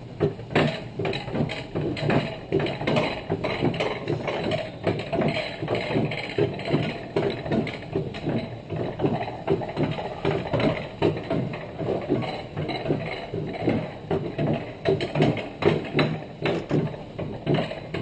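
Rainforest bobsled sled running down its steel rail track, its wheels giving a fast, rhythmic clatter of about three to four knocks a second.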